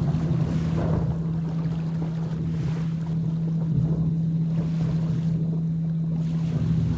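A steady low tone at about 165 Hz, a binaural-beat carrier, hums over a rain recording whose noise swells and ebbs. Low rumbles of thunder come near the start and again near the end.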